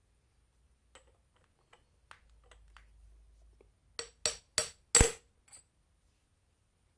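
Ceiling fan motor parts being handled: a few light clicks and clinks, then four sharp knocks about a third of a second apart, the last one loudest, and a faint tap after it.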